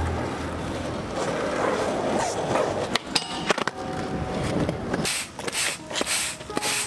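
Skateboard wheels rolling on concrete, with a few sharp clacks of the board about three seconds in. A run of loud, hissing scrapes follows near the end.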